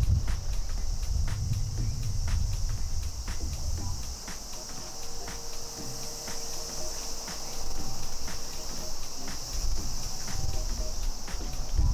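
A steady, high-pitched drone of insects singing, with a low rumble that fades after a few seconds and comes back near the end.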